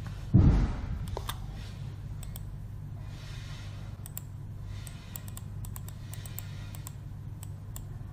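Computer mouse clicking a few times while an item is picked from a drop-down list, over a steady low electrical hum. A single low thump on the microphone comes about half a second in.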